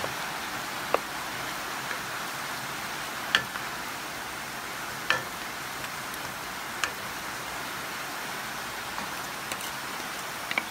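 Steady hiss of falling rain, with four or five sharp clicks spaced a couple of seconds apart.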